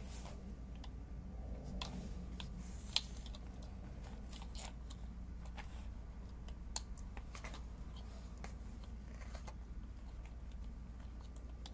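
Small plastic toy figures being handled and set on a plastic toy seesaw: scattered light clicks and taps, with a sharper click about three seconds in and another near seven seconds, over a faint low hum.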